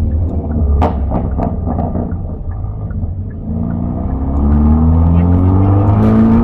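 Hyundai Elantra N's turbocharged 2.0-litre four-cylinder exhaust: the engine note falls off with a few sharp pops and crackles about a second in, then climbs steadily in pitch as the engine revs up again.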